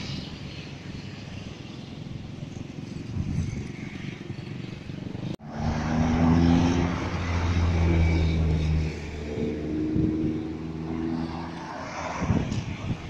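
Road traffic: cars driving past on a street. Just after halfway a steady engine hum comes up loud for a few seconds, then fades into lighter passing traffic.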